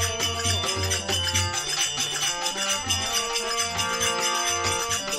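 Instrumental interlude of a Rajasthani folk bhajan: a melody instrument plays sustained and gliding lines over a steady drum beat, with jingling percussion.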